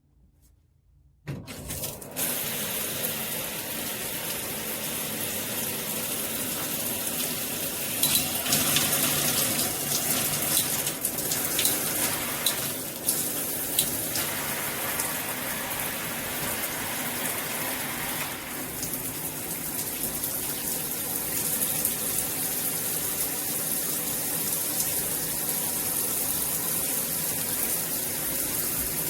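Shower water switched on about a second in, then spraying steadily from the shower head and splashing, with some louder, uneven stretches in the middle.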